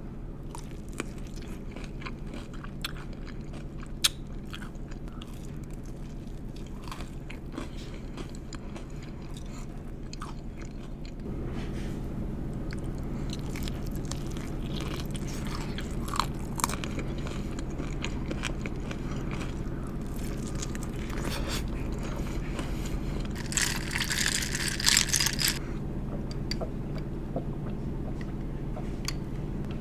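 Close-up chewing and biting of sauced chicken wings: wet smacks, crunches and small clicks. A steady low hum runs underneath and gets a little louder about a third of the way in, and a louder crackling burst comes near the end.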